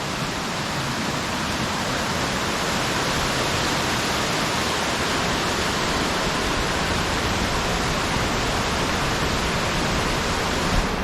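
Waterfall: falling water rushing in a steady, even hiss that grows a little louder over the first few seconds.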